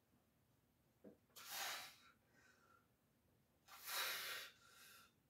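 Forceful hissing breaths through the mouth while pressing heavy dumbbells: two strong exhales about two seconds apart, the second followed by a fainter breath.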